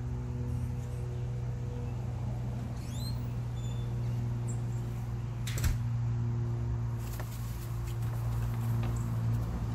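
A steady low hum with several steady tones, with a few faint high chirps about three seconds in and a single sharp click about five and a half seconds in.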